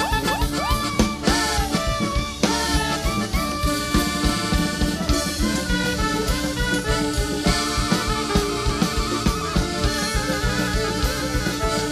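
Band music with a steady drum beat and melodic instruments playing over it.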